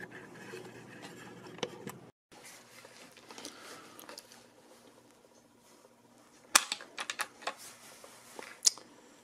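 Hands handling the metal action of a J.C. Higgins Model 46 .22 rifle: quiet shuffling with light clicks, then a sharp metallic click about six and a half seconds in, a quick run of smaller clicks, and one more click near the end.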